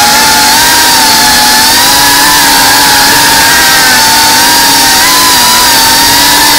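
Brushless motors and propellers of an FPV racing quadcopter heard from on board: a loud, steady, high-pitched whine over a hiss of wind and prop wash, the pitch dipping briefly about five seconds in.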